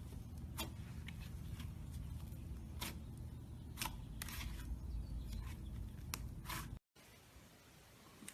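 Slime being handled, with scattered sticky clicks and pops over a low rumble. The sound cuts out abruptly near the end and comes back quieter.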